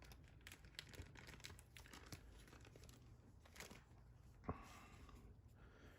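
Faint crinkling of a small plastic bag of diamond painting drills being handled, with scattered light clicks and a slightly louder rustle about four and a half seconds in.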